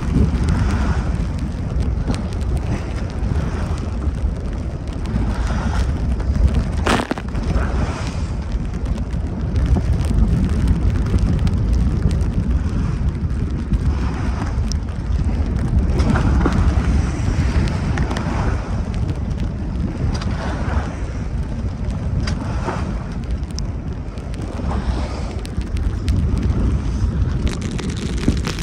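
Strong wind buffeting the microphone with a heavy rumble, over the rush of waves and spray breaking along the hull of a small sailboat beating upwind in rough seas, surging every couple of seconds. One sharp knock about seven seconds in.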